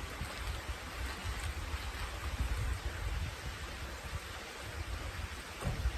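Creek water running steadily over rocks, with an uneven low rumble underneath.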